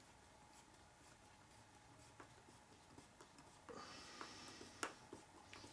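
Faint clicks and scratching of a hand screwdriver driving a screw into a plastic transmission housing, with a sharper click near the end.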